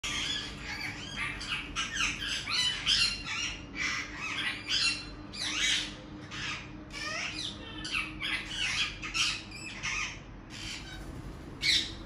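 Several rose-ringed parakeets giving harsh, screeching calls in quick, overlapping runs, with one loud call near the end.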